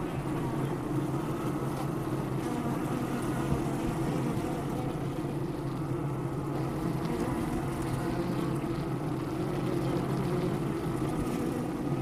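Honey bees buzzing in a steady, dense drone, as of a colony at the hive.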